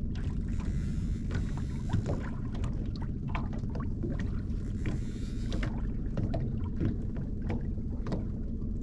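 Boat's outboard motor running steadily at trolling speed, a constant low hum, with occasional short knocks and clicks from gear being handled in the boat.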